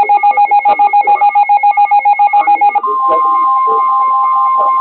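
Emergency alert tones ahead of a severe thunderstorm warning: a loud tone pulsing rapidly, about eight beats a second, then, about three seconds in, a steady higher tone like the weather-radio warning alarm comes in over a slower pulsing tone.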